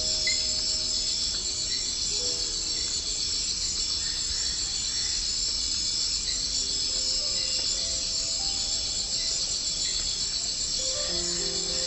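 Steady, high-pitched chorus of rainforest insects, like crickets, shrilling without a break. Soft music of long held notes plays underneath and grows more noticeable near the end.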